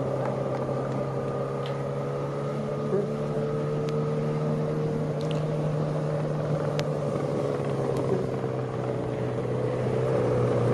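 The engine of a TV camera motorcycle following the cyclists, running steadily with a drone whose pitch wavers slightly.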